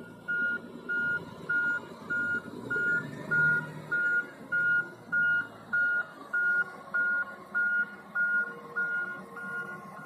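Back-up alarm beeping steadily, about three beeps every two seconds, over the low running of a wheel loader's diesel engine as the machine manoeuvres with a log in its grapple.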